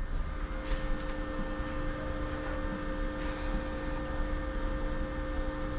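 A machine's steady hum with two fixed tones over a low rumble, with a few faint ticks and knocks.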